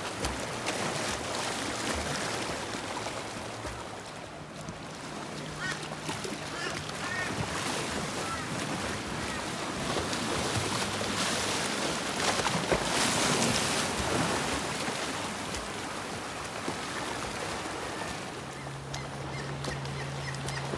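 Sea water washing and splashing in the shallows, with wind buffeting the microphone; the noise swells for a few seconds around the middle. A low steady hum comes in near the end.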